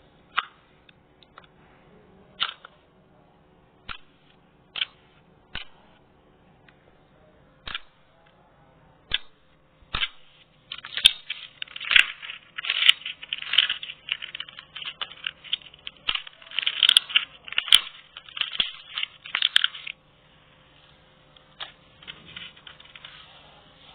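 Slime being pressed and squeezed by hand, giving sharp sticky pops and clicks a second or two apart, then a dense run of crackling pops for about ten seconds before it thins out again.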